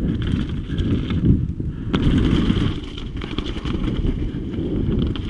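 Downhill mountain bike ridden fast over a dirt trail, heard from an action camera mounted on the rider or bike: tyres rumbling over the ground, the bike rattling and clattering over bumps, and wind buffeting the microphone.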